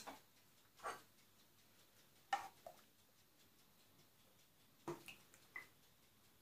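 A handful of short, faint clinks and knocks as a metal ladle and a stainless steel pot touch glass dessert cups while a fig and milk mixture is poured into them; otherwise near silence.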